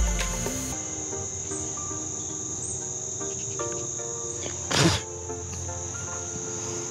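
A steady, high-pitched chorus of insects, with soft background music of held notes underneath. About five seconds in, a brief burst of rustling noise is the loudest sound.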